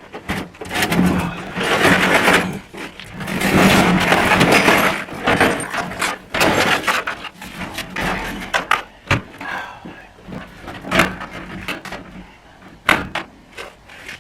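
Metal hand tools clattering and rattling against each other and the steel toolbox, a dense jumble for about the first six seconds, then scattered sharp knocks.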